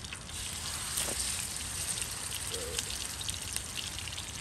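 Raw meat sizzling in a hot pan over campfire embers: a steady hiss that swells about a second in, with small crackles and pops.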